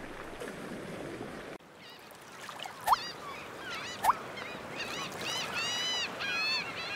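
Surf washing on a beach briefly, then gulls calling. There are two sharp rising calls about a second apart, followed by a quick run of harsh calls near the end.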